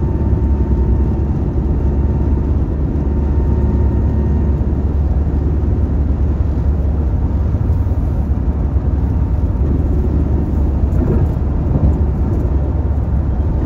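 Car driving on a highway: a steady low rumble of road and engine noise.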